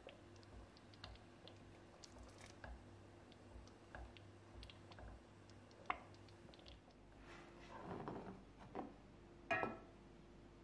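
Wooden spoon stirring thick, sticky jam in a pot: faint, irregular soft clicks and wet plops. Near the end come a few louder scrapes and knocks, the loudest a single knock.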